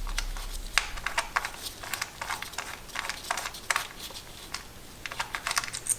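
Irregular light clicks and taps of hand tools and metal parts being handled during spark plug work on an engine, a few each second.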